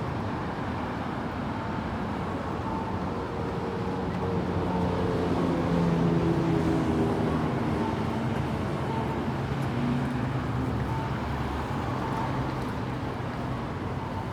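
City street traffic ambience: a steady traffic hum, with a motor vehicle's engine passing close, loudest about six seconds in, its pitch falling slightly as it goes by. Faint short high tones recur roughly once a second throughout.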